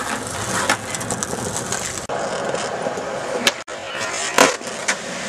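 Skateboard wheels rolling on rough concrete, broken by several sharp clacks of the board popping and landing, the loudest about four and a half seconds in.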